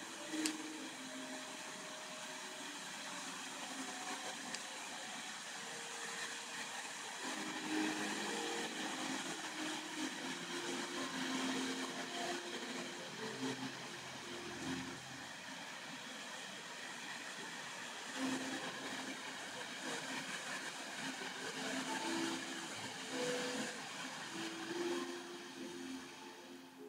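Several ground fountain fireworks spraying sparks with a steady hiss, and a single sharp crack about half a second in.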